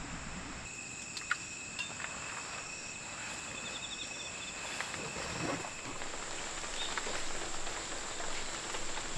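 Insects, such as crickets, chirping: steady high-pitched calls with a short fast trill about three and a half seconds in, over an even background hiss.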